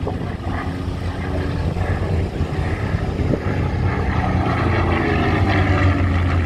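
Supermarine Spitfire's V12 piston engine droning overhead in a display pass. It grows louder over the last few seconds as the fighter comes closer.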